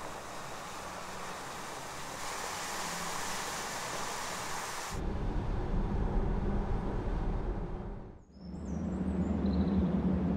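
Tyres of a Volkswagen ID.3 electric car hissing on a wet road. About five seconds in, the sound changes abruptly to a lower, steadier rumble. Near the end, after a brief dip, a few short high chirps come over a low hum.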